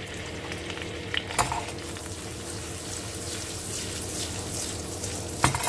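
Butter and sugar sizzling and bubbling in a nonstick frying pan over a gas flame as a caramel begins, with a steady crackle. Two knocks of the pan sound through it, one about a second and a half in and a louder one near the end.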